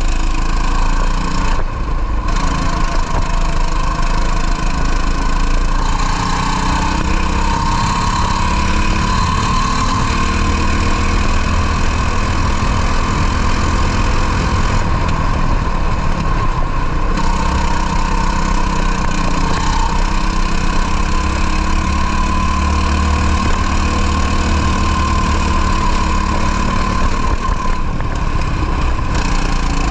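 Two-stroke racing kart engine running at high revs, its pitch dropping several times as the driver lifts off or brakes and then climbing again as it accelerates.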